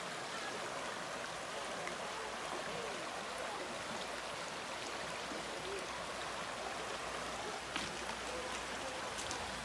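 Shallow creek running over a stony bed: a steady rush of flowing water.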